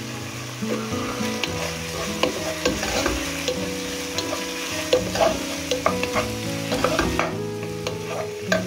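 Chicken pieces with onion and garlic frying in a nonstick pan, sizzling steadily while a wooden spoon stirs them, with irregular clicks and scrapes of the spoon against the pan.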